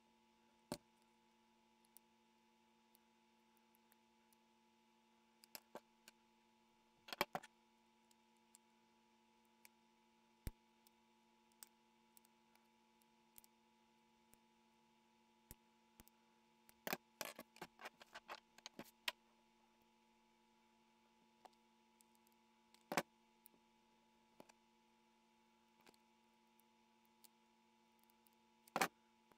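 Near silence with a steady faint hum, broken by scattered sharp clicks and snips of scissors cutting thin white plastic and of the cut pieces being handled, with a quick run of them a little past halfway.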